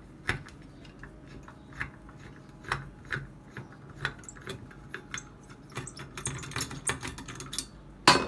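Irregular small metal clicks and scrapes as nuts are worked loose from the terminals of an electric clothes iron, with a louder sharp clank near the end.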